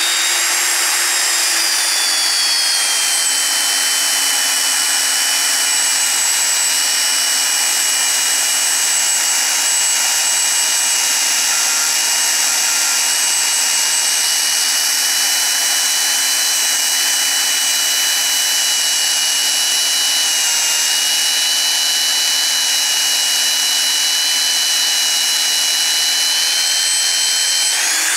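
Hougen HMD130 magnetic drill's motor running under load while its annular cutter bores through steel tube, a steady high whine with cutting noise. The pitch sags over the first couple of seconds as the cutter bites into the steel, holds steady, and rises again near the end as the load eases.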